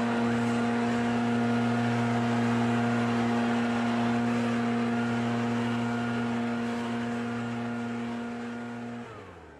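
Gas leaf blower running at steady high throttle while blowing grass clippings off the curb and street. About nine seconds in the throttle is released and the engine's pitch and level fall away.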